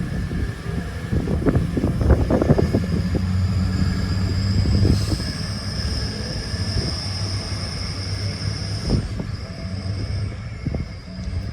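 Grand Central Class 180 diesel multiple unit pulling out of the station under power: a steady low engine hum with a run of knocks over the first few seconds. A high whine rises slowly in pitch and stops about nine seconds in.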